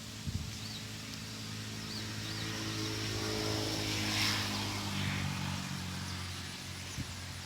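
An engine running and passing by, growing louder to about four seconds in, then easing off.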